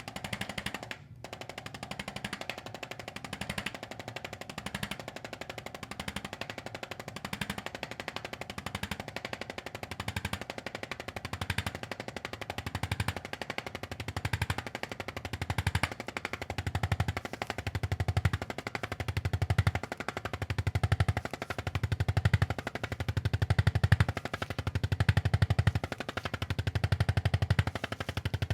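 Motorized chiropractic adjusting instrument rapidly tapping along the spine to loosen it up before manual adjustment. It makes a fast, continuous stream of taps that swells in a slow pulse about once a second during the second half, getting louder near the end.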